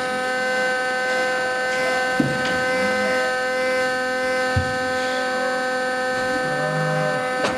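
A steady mechanical hum made of several even tones, with sharp knocks about two, four and a half and seven and a half seconds in. Calves penned in the livestock truck give a few faint, low calls.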